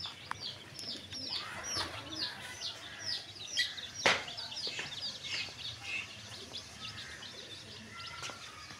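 Young chickens (chicks) peeping continually, a rapid run of short, high, downward-sliding peeps. There is a single sharp knock about four seconds in.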